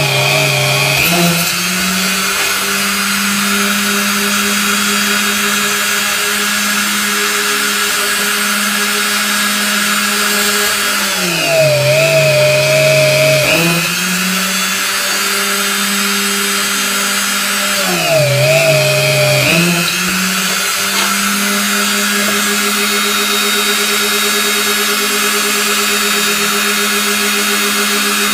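Rotary tool mounted in a drill-press stand running at a steady high speed while a brass motif is worked against its bit. Its pitch drops briefly three times (right at the start, about halfway through and again a few seconds later) as the brass is pressed in and loads the motor, then recovers.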